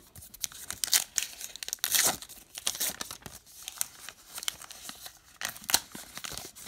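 A 2019 Topps Gypsy Queen baseball card pack wrapper being torn open and peeled back from the cards, crinkling and tearing in a run of irregular sharp crackles.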